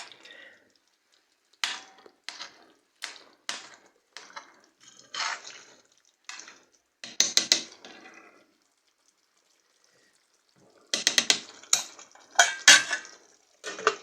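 A cooking utensil clinking and scraping against a pot in a string of separate short strokes. After a pause of a couple of seconds, a louder cluster of clatters comes near the end.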